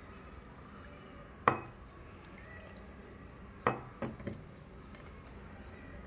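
Stainless steel kitchenware clinking: two sharp metallic clinks about two seconds apart, the second followed by a couple of lighter taps.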